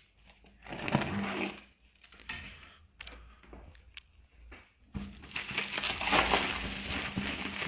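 Clear stretch film wrapped around a cardboard box crinkling and rustling as the box is handled, with a few sharp knocks. About five seconds in the crinkling becomes louder and continuous.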